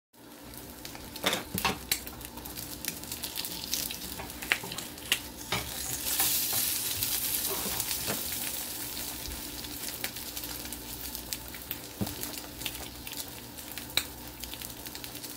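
Eggs frying in a small black skillet on a gas burner: a steady sizzle studded with sharp pops and crackles, growing louder for a few seconds in the middle.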